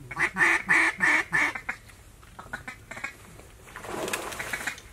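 Duck quacks: a quick run of about five loud quacks in the first second and a half, then fainter scattered quacks. A short rushing noise comes about four seconds in.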